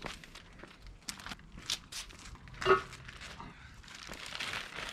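Clear plastic bags crinkling and rustling as a plastic-wrapped exhaust section is lifted and carried, with one brief louder sound a little past halfway.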